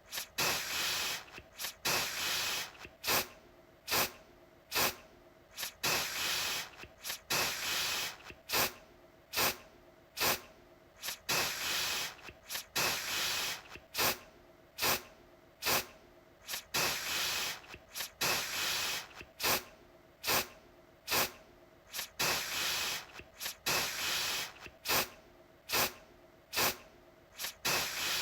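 Aerosol deodorant can spraying in short, repeated bursts of hiss, one every second or two, each opened with a sharp click of the nozzle.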